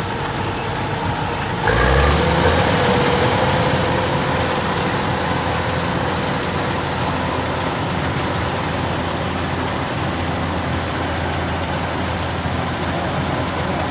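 Kubota DC-105X combine harvester's diesel engine and threshing machinery running steadily while cutting rice. The sound turns suddenly louder and fuller about two seconds in, then holds steady.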